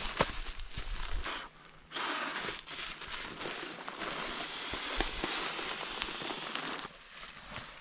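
Rustling and crinkling of a nylon sleeping bag and stuff sack being handled and laid into a tarp shelter, with footsteps on river gravel.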